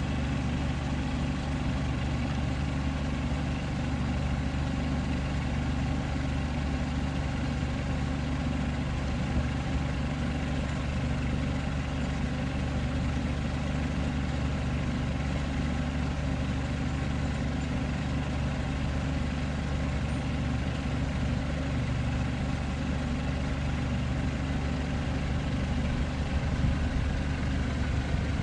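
An engine idling steadily: a low, even hum with no change in speed.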